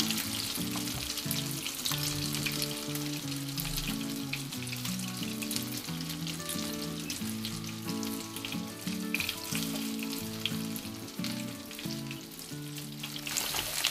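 Breaded chops and potato slices sizzling and crackling in hot oil in the frying pan of a REDMOND multikitchen, a steady crackle that lasts throughout. Soft background music with a changing melody plays underneath.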